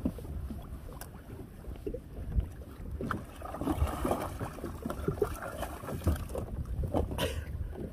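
Wind rumbling on the microphone and sea water lapping against a kayak hull, with scattered small knocks.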